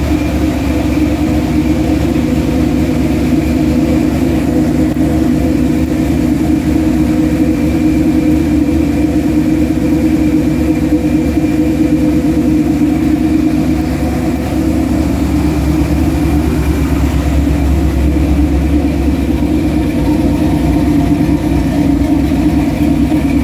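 A 1980s squarebody pickup's engine idling steadily, with a low, even hum and no revving.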